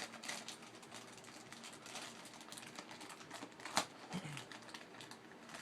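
Small plastic Play-Doh tools and their packaging being handled: a run of light clicks, taps and rustles, with one sharper click a little under four seconds in.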